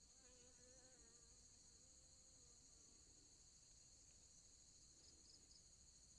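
Faint steady chorus of insects (crickets or cicadas) trilling high-pitched, with a faint wavering tone underneath during the first few seconds.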